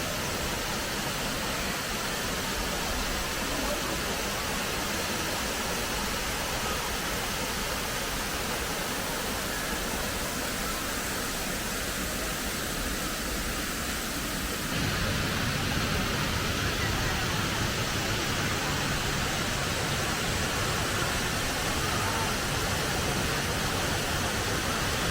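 Waterfall rushing steadily: Gooseberry Falls' lower falls, a continuous hiss of falling water. About fifteen seconds in the sound abruptly turns fuller and deeper.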